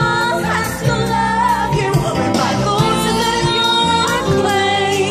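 Live amplified musical-theatre song: a woman singing long held notes into a microphone over backing music.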